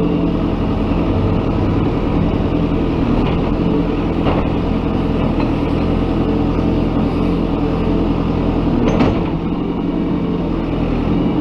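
Heavy machine's engine running steadily, with two short knocks, about four and nine seconds in.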